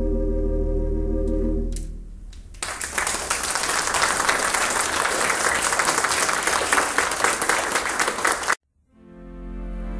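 The Kimball theatre pipe organ's final held chord dies away about two seconds in, then an audience applauds until the sound cuts off suddenly. Near the end, slow sustained music fades in.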